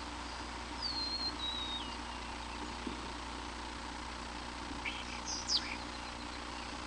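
Bird calls: a thin whistle falling in steps about a second in, then a few sharp chirps with a quick downward sweep near five seconds. Steady hiss and hum lie underneath.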